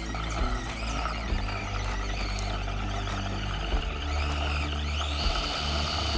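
Axial SCX24 micro crawler's small electric motor and gears whining as it climbs. The whine rises and falls in pitch about four to five seconds in as the throttle is worked.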